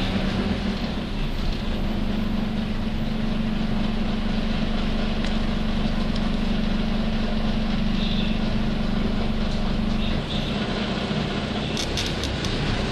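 Interior running sound of a Nissan Diesel UA city bus (U-UA440NAN) at steady speed. A steady hum holds one pitch and fades about ten seconds in. This is a bus that runs with an abnormal noise as its vehicle inspection comes due, and there are a few light clicks near the end.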